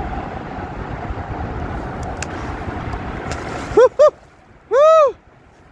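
Steady rush of wind and water noise on the microphone. About four seconds in come two short high tones and then one longer one, each rising and falling in pitch; these are the loudest sounds.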